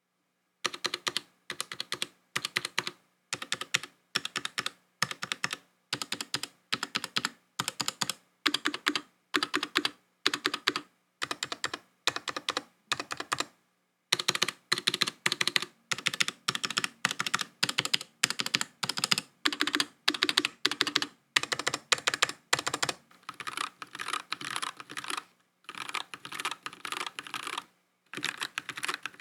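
Mechanical keyboard with stock Gateron Yellow switches in a full aluminium case, typed on steadily in quick runs of clacking keystrokes with a few short pauses. The keyboard is in its stock, undampened state, with the hollow case resonance the reviewer counts as a drawback.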